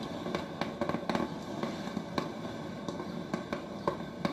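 DeLonghi drip filter coffee maker brewing: a steady hiss broken by about a dozen irregular pops and crackles as the hot water sputters up through the machine toward the filter.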